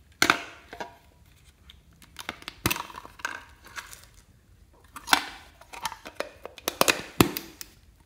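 Small pumpkin-shaped tin box being handled and opened: its wire latch clicks and the metal halves knock and rattle together in short clusters of sharp clicks.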